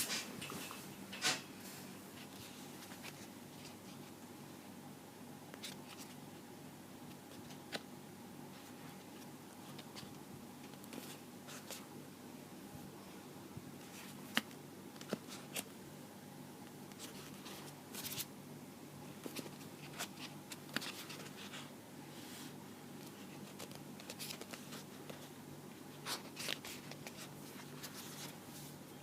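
Quiet room tone with a steady low hum, broken by scattered small clicks, taps and rustles of an object being handled.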